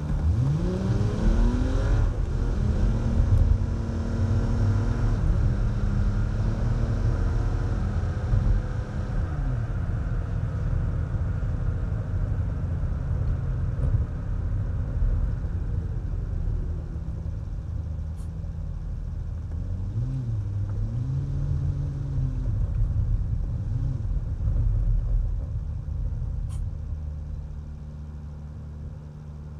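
Car engine pulling away and accelerating up through several gear changes, then running steadily at road speed with tyre and road noise. It revs briefly a little after twenty seconds, and the sound drops as the car slows near the end.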